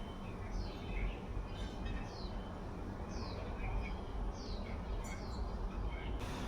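A bird chirping, a short falling note about once a second, over a steady low background rumble.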